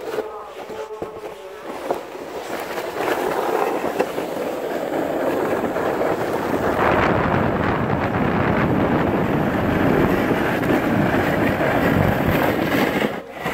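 Plastic snow sled sliding down a groomed snow slope: a rumbling scrape over the snow that grows louder over the first several seconds, then stops abruptly near the end.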